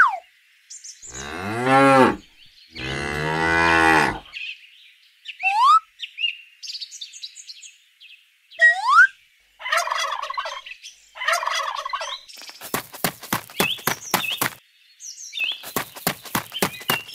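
A cow mooing twice, two long calls in the first few seconds, with short rising bird chirps between and after them. Later come two runs of rapid clicking bird calls.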